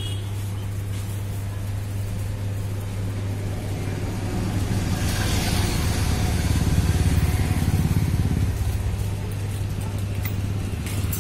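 A vehicle engine running steadily with a low hum, growing louder from about five seconds in and easing off again near eight seconds.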